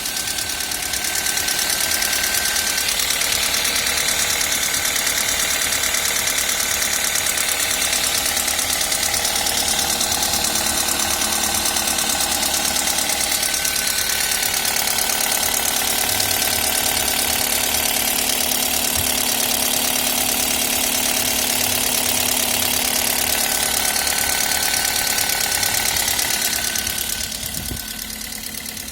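Toyota 1ZZ 1.8-litre four-cylinder engine running steadily with a fast, even valve tapping over the engine note, the clatter of noisy valves. It gets quieter near the end.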